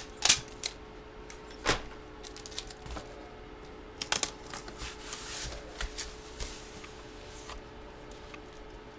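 Hands handling cards and their packaging: scattered sharp clicks and taps, loudest near the start and around four seconds in, with a brief rustle of plastic or paper about five seconds in.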